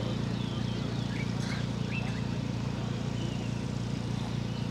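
An engine idles steadily with an even low throb, while birds chirp briefly above it.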